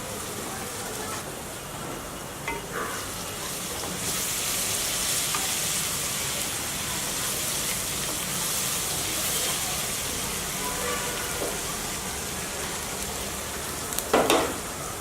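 Food frying in a pan with a steady sizzle while it is stirred. The sizzle grows louder about four seconds in, and there is a short, loud clatter near the end, most likely the spoon hitting the pan.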